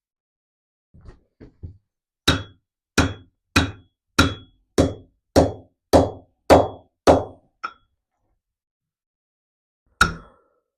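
Weighted fork-seal installer being slammed down on a Yamaha TT600R fork, driving the new oil seal into the fork tube. A few light taps, then about nine even strikes at roughly one and a half per second, each with a short metallic ring, and one last strike near the end.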